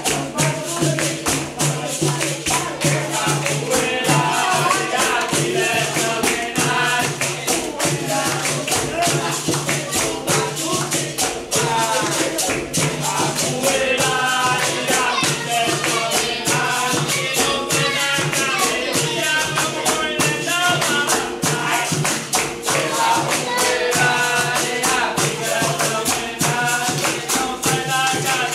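Capoeira music: a pandeiro and other percussion keep a dense, steady beat under a group of voices singing.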